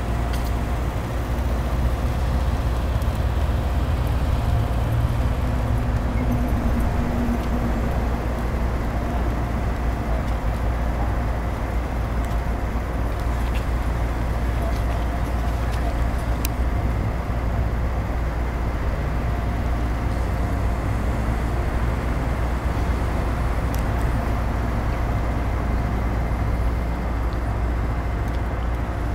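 Steady city traffic noise: cars running on a busy street, a constant low rumble with no single vehicle standing out.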